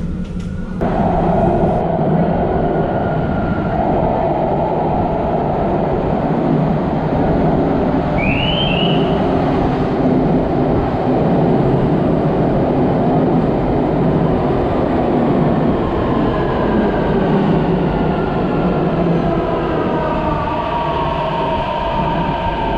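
Metro train running into an underground station with a loud steady rumble, a short rising squeal around a third of the way in, and in the second half the falling whine of its electric motors as it brakes towards a stop.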